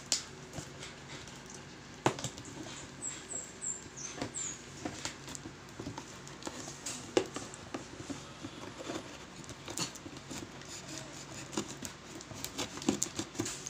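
Cardboard box being handled and opened by hand: irregular scratching and rustling of cardboard and packing, with scattered sharp knocks, the loudest about two seconds in.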